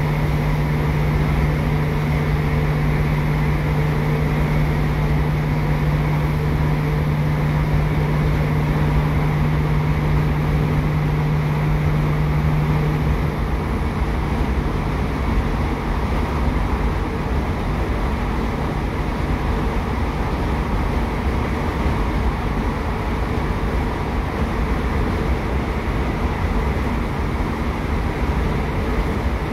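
Cabin running noise of a British Rail Class 150 Sprinter diesel multiple unit under way: the underfloor Cummins diesel engine's drone over a steady rumble. A steady low hum in the noise stops about halfway through.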